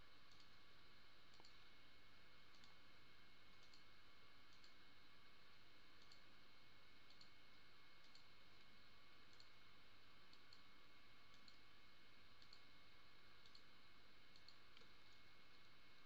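Faint computer mouse clicks, about one a second at an uneven pace, over a quiet steady background hum. Each click picks another window profile for a multi-select.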